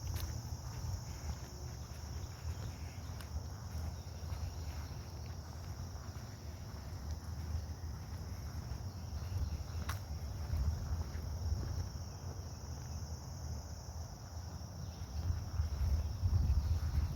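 A steady high-pitched insect chorus over a low rumble that grows louder near the end, with a few sharp clicks, the clearest about ten seconds in.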